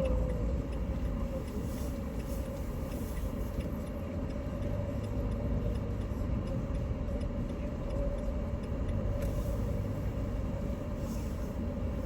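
Renault Trafic campervan on the move: a steady low engine and road rumble with a steady whine over it.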